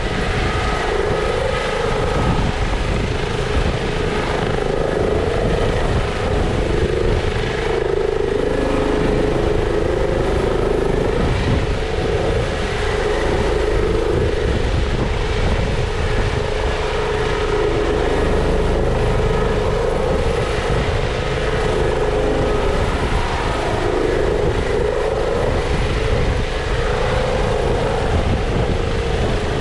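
EC645 military helicopter hovering overhead: steady rotor and turbine noise while it winches a stretcher up on its rescue hoist.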